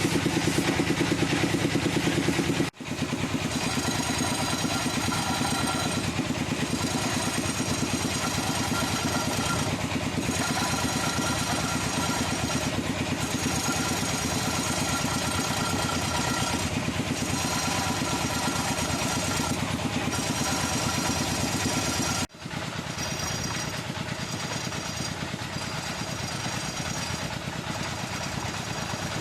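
Wood lathe running with a turning tool cutting the spinning wood, a steady machine hum with a fast rattling chatter. The sound breaks off abruptly and resumes about three seconds in and again near the end.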